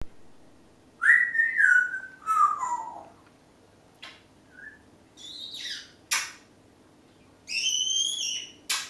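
Congo African grey parrot whistling: a run of separate whistled notes, some falling in pitch, mixed with short clicks and harsh bursts.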